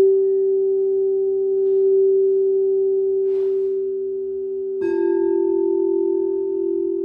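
Singing bowls ringing in a long, steady tone; about five seconds in another bowl is struck and its slightly lower ring sounds over the first.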